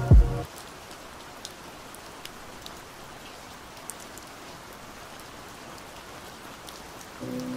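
Steady rain ambience: an even hiss of rainfall with scattered light drops. Just after the start, the preceding slowed song cuts off with a brief, loud, deep falling sweep. Near the end the next muffled song comes in over the rain.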